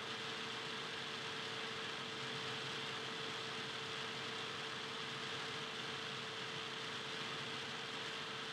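Steady hiss with a constant mid-pitched hum, unchanging throughout, with no ball bounces, shoe squeaks or voices standing out.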